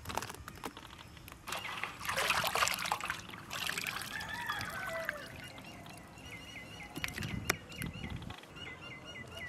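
Wet squelching and sloshing as chopped raw goat lung and offal are squeezed and turned over by hand in a metal basin. From about halfway through, a bird chirps repeatedly, about two short notes a second.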